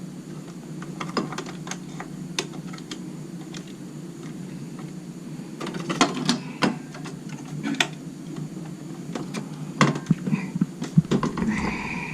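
Irregular light clicks and plastic knocks of a RAM stick being pressed into a desktop PC's memory slot and its retention clips handled, over a steady low hum. The clicks bunch up and grow louder about six seconds in and again near ten seconds.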